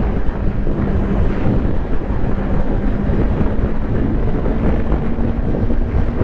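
Kawasaki Ninja 400 parallel-twin engine running at a steady cruise through its stock exhaust, its pitch edging up slightly in the second half. Heavy wind noise on the microphone is mixed in.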